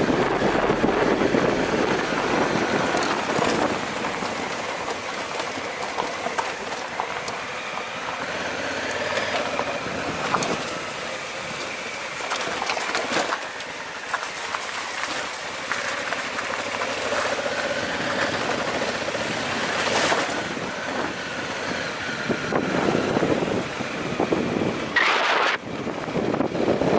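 Motorcycle engine running at low speed as the bike rolls over a rough gravel and rock track, with scattered knocks from stones under the tyres.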